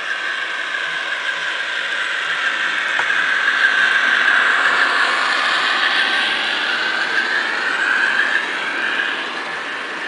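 HO-scale model diesel locomotive and freight wagons running past close by: a high motor whine that wavers up and down in pitch over the rattle of wheels on the rails, swelling as the train passes and easing off near the end.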